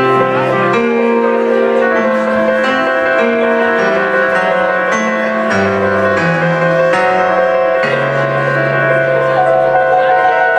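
Live jazz from piano and double bass: slow, held low notes that change pitch about once a second, with chords above them.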